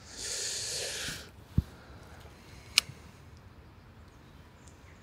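Handling noise from an angler's fishing tackle: a hissing rustle lasting about a second, then a soft low thump and, about a second later, one sharp click.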